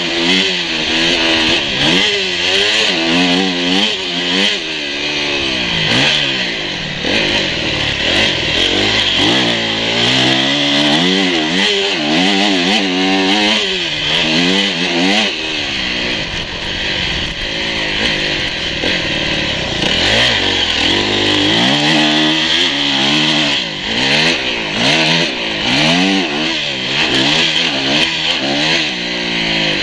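Dirt bike engine revving up and dropping back again and again as the rider accelerates, shifts and rolls off over a motocross track, with a steadier stretch of lower revs about halfway through. Wind rush on the on-board microphone runs under it.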